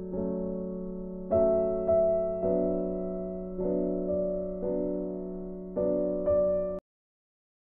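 Background piano music, soft chords struck every second or so, cutting off abruptly near the end.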